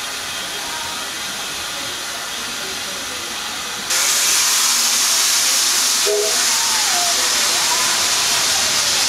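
Steam locomotive standing at a platform with steam hissing off it steadily; about four seconds in the hiss turns suddenly much louder and brighter and stays that way.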